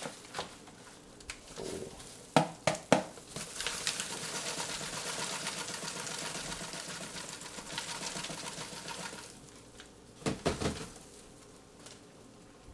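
Live crickets shaken out of a cardboard shipping box into a plastic tub of shredded paper: a few knocks as the box is tapped, then several seconds of dense rattling and rustling as crickets and egg-crate pieces tumble out, and more knocks about ten seconds in as the box is tapped empty.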